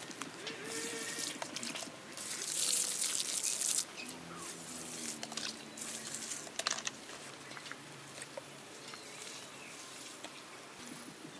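Water running or being poured in short gushes, the longest lasting about a second and a half and stopping suddenly about four seconds in, followed by scattered drips and light clicks.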